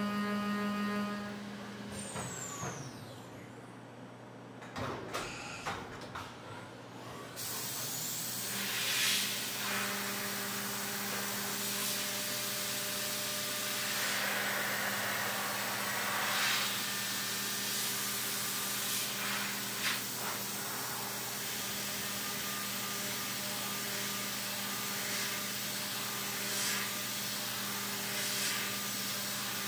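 Hurco VMX30Di CNC mill's direct-drive spindle running at about 12,000 rpm with a steady hum while an end mill cuts aluminium. About two seconds in the spindle winds down with a falling whine, a few knocks and clicks follow, which is the tool change from the roughing end mill to the finishing one. A little after the seventh second the coolant spray hiss comes on with the spindle hum back under it for the finishing pass.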